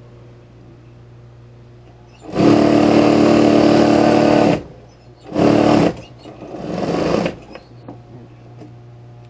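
Industrial high-speed lockstitch sewing machine closing a side seam. Its motor hums steadily while it is idle. It stitches in a run of about two seconds starting a couple of seconds in, then gives a short burst, then a third run that speeds up before stopping.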